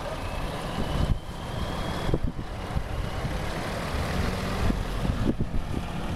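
Scania fire truck's diesel engine running at low speed as the truck drives slowly past close by: a steady low rumble with a few short thumps.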